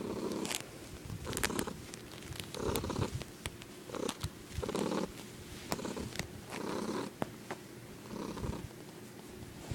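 Domestic cat purring with a weird sound, in repeating bursts about once a second.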